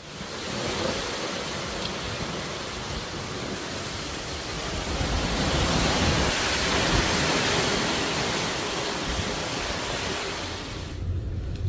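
Heavy tropical-storm downpour driven by strong gusting wind, a dense steady hiss of rain that swells a little midway.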